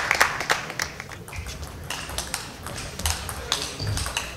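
Table tennis rally: the ball clicks sharply off the bats and the table in quick, irregular succession.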